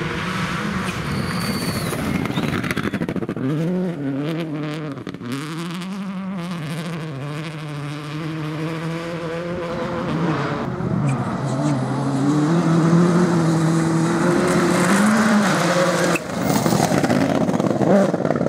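Subaru Impreza rally car's engine revving hard. Its pitch climbs and drops back again and again as the car accelerates and lifts. It grows louder over the second half, with a brief sudden cut about sixteen seconds in.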